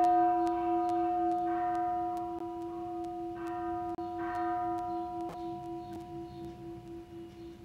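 A struck Buddhist temple bell ringing out and slowly dying away, its low hum pulsing steadily.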